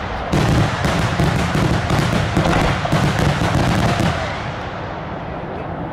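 Daylight fireworks: a shell bursts about a third of a second in, followed by a dense rattle of many small reports from its scattered sub-bursts, thinning out over the last couple of seconds.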